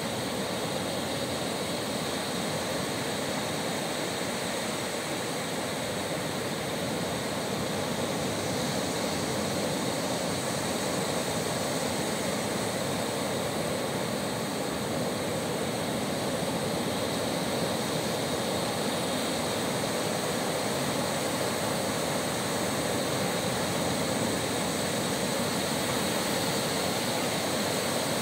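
Caspian Sea surf breaking on a sandy beach: a steady, unbroken roar from several lines of waves coming in together.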